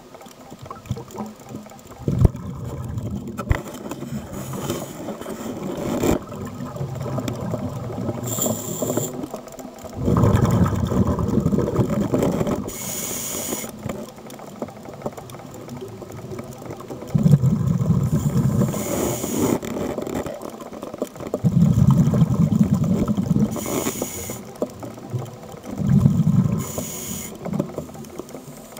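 Scuba diver breathing through a regulator underwater: short hissing inhalations alternate with longer bursts of exhaled bubbles, a breath every five seconds or so.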